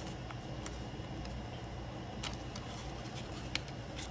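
Paper banknotes being handled and counted out, giving a few short, crisp clicks and snaps over a steady low background hum.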